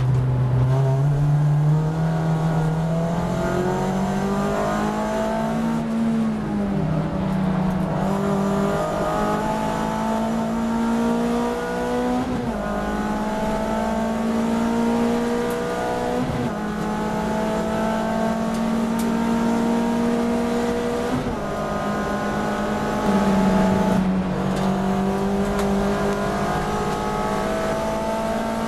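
Onboard sound of a VW Lupo race car's engine under hard acceleration. The note climbs through the gears, breaking off at three quick upshifts. Near the end it lifts and drops lower for the braking into a corner, then starts pulling up again.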